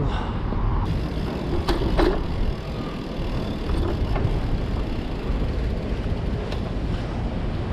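Wind rumbling over the microphone and tyre noise from a Bianchi road bike riding along a paved path, with a couple of sharp clicks about two seconds in.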